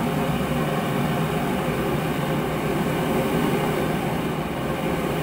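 Homemade propane forge burner (a kompor tikus gas valve feeding a 3/4-inch pipe) burning with a blue flame jet: a steady, low rushing roar. The blue jet is the sign that the burner is assembled correctly.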